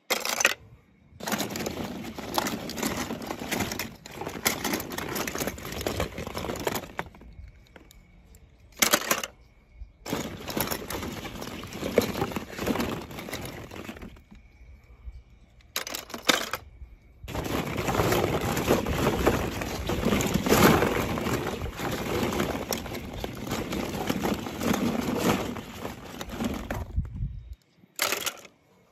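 Small die-cast toy cars clinking and rattling against each other and a plastic tub as a hand rummages through them. The clatter comes in several long stretches broken by short pauses.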